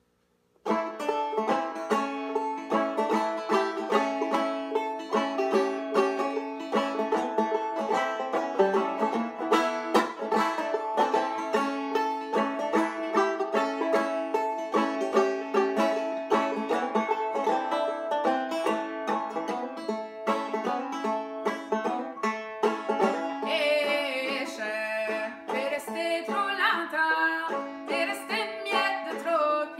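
Banjo picked in a quick, even rhythm, starting about half a second in. A woman's singing voice comes in over it about 24 seconds in.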